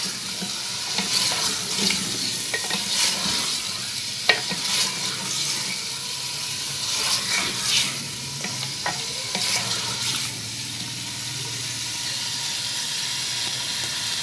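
Chicken pieces sizzling in hot oil in an earthenware handi while a wooden spoon stirs them, scraping and knocking against the clay pot, with one sharp knock about four seconds in. After about ten seconds the stirring noises ease and a steady sizzle remains.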